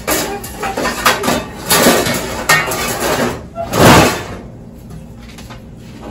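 Kitchen clatter: a run of knocks and taps of a utensil against cookware, with a louder, noisier burst about four seconds in, then quieter.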